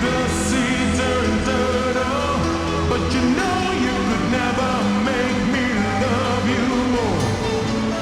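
Music from a DJ mix: a sung vocal over sustained tones and a steady low bass, with a long falling pitch glide about seven seconds in.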